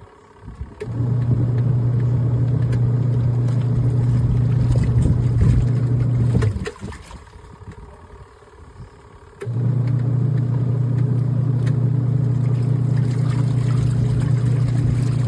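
Portable twin-tub washing machine's motor humming steadily, running for about six seconds, stopping for about three, then starting again.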